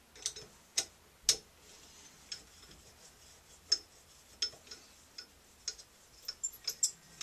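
Sharp metallic clicks and taps, about a dozen and unevenly spaced, from hands and a screwdriver working the brass handle and trim plate of a Price Pfister shower valve.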